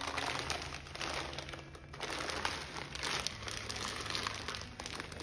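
Thin plastic wrapping of a jigsaw puzzle box crinkling continuously as hands tear off the shrink wrap and tug at the stubborn plastic bag of puzzle pieces.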